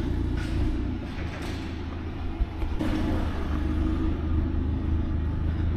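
A steady low mechanical hum with a held tone above it, engine-like, and a few faint light knocks, one sharper about halfway through.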